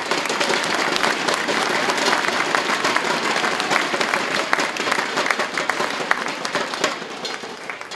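Audience applauding, a dense run of many hands clapping that dies away near the end.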